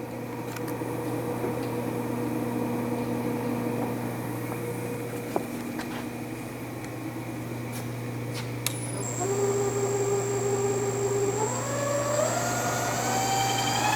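Victor 3 hp electronic variable speed milling machine: a steady hum, then a click about two-thirds through as the spindle starts. Its running whine climbs in steps as the speed is turned up toward about 2,400 RPM, with a faint high steady tone alongside. The machine runs quietly.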